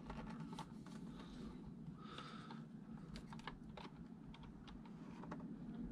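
Faint scattered small clicks and taps of fingers handling a 1/24-scale RC truck's plastic chassis, wiring and speed-control board, over a steady low hum.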